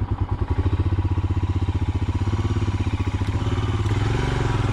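Royal Enfield Himalayan's 411 cc single-cylinder engine running at low revs with an even beat of slow firing pulses, picking up slightly about four seconds in.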